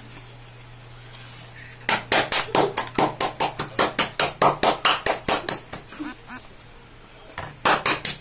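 A person's voice in a quick run of short, breathy bursts, about five a second, starting about two seconds in and lasting some four seconds, with a shorter run near the end. A low steady hum lies underneath.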